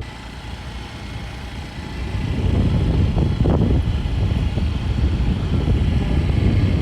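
Car running along the road: a steady low rumble of engine and road noise that grows louder about two seconds in.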